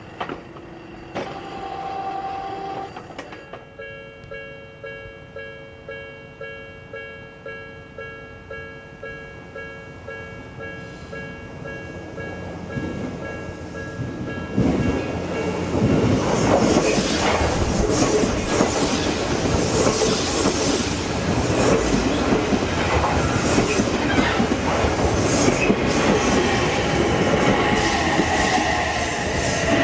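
Japanese level-crossing warning bell ringing in a steady repeated ding, about one and a half strikes a second. About halfway through, an electric commuter train passes close by and drowns it out, its wheels clattering over the rail joints, with a motor whine sliding in pitch near the end.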